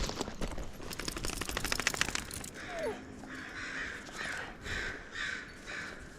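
A crow cawing over and over, about two harsh calls a second, starting roughly two and a half seconds in. Before that comes a quick run of clicks and crackles.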